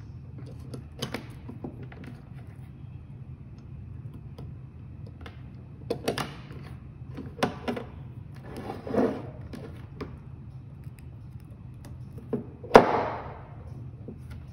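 Clicks and knocks of hands handling a stepper-motor cable connector and the motor on a wooden desk, with cable rustle in between and the loudest knock near the end. A steady low hum runs underneath.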